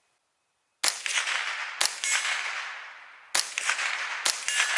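Remington 597 .22 LR semi-automatic rifle firing Winchester Super Speed rounds: sharp single shots spaced about one to one and a half seconds apart, four of them with a fifth just at the end, each followed by a long fading echo.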